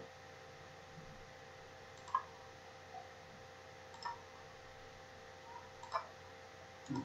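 Faint computer mouse clicks, four of them about two seconds apart, over a low steady electrical hum.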